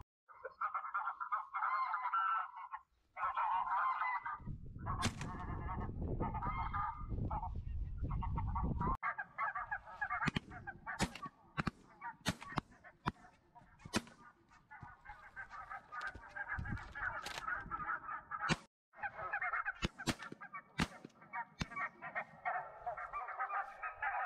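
Geese honking, many calls overlapping, with sharp cracks of a shotgun firing through the middle. A low rumble lies under the calls for a few seconds near the start.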